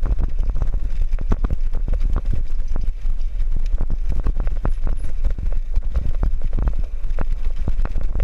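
City bicycle rattling along a rough concrete path, its wire front basket and frame clattering in quick irregular knocks. Wind rumbles on the microphone throughout.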